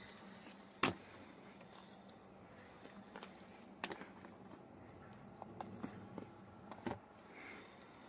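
Hands handling sliced parizer and white wrapping paper on a wooden table, making a few faint scattered clicks and crinkles over a quiet background. The loudest click comes about a second in.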